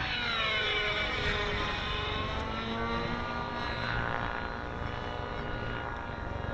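Nitro-engined RC helicopter flying aerobatics, its engine and rotors whining in a stack of tones. The pitch falls over the first couple of seconds and rises again about four seconds in as the helicopter manoeuvres.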